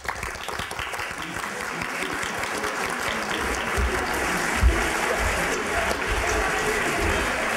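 Audience applauding, starting suddenly and building over the first few seconds into steady clapping, with a single low thump about halfway through.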